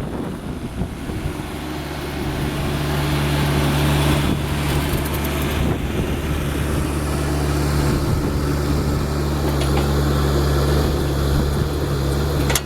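A compact tractor's diesel engine running at a steady speed, growing louder over the first couple of seconds, then holding even.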